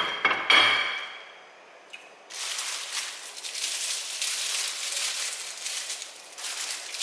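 A ceramic plate set down on a hard counter: a few sharp clinks with a short ring in the first second. From about two seconds in, clear plastic wrapping is crinkled steadily as it is handled and unwrapped.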